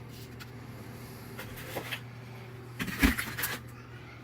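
Rusty steel nuts and bolts dropped into a plastic container: a few faint clinks, then a short clatter with a dull thump about three seconds in, over a steady low hum.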